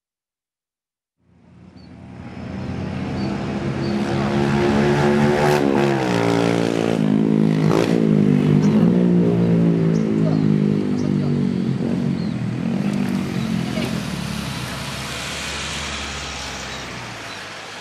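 After about a second of silence, a motor vehicle's engine fades in and runs steadily. Its pitch dips and recovers briefly twice, about five and eight seconds in, and it eases off near the end.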